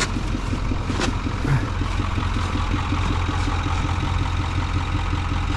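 Truck engine running at a steady speed, with one short click about a second in.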